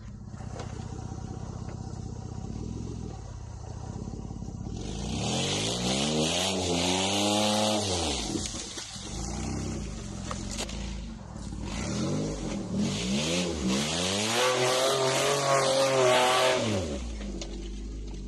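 Mitsubishi Endeavor's 3.8-litre V6 engine running low for a few seconds, then revved hard twice as the SUV tries to climb a dirt slope, its pitch rising and falling each time. A loud hiss of tyres spinning in dirt comes with each rev.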